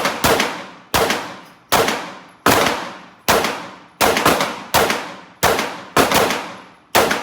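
Gunfire: about a dozen shots fired at a steady pace, roughly one every 0.7 seconds with a couple of quicker pairs, each shot followed by a short echoing tail.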